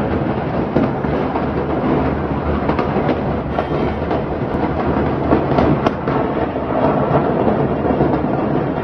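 Fireworks going off in a burning warehouse: a dense, continuous crackle with many sharp pops scattered through it.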